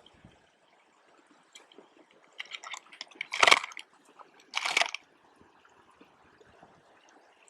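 Two short splashes of water about a second apart, after a few small splashy clicks.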